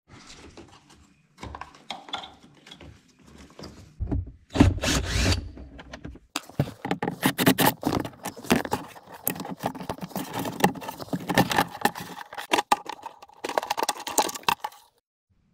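Hand work on car trim: a run of clicks, scrapes and rattles as the plastic lower dash panel under the steering column is pried loose with a screwdriver and pulled away. There is a louder thump about four seconds in, and the clicking and scraping grow dense for most of the second half.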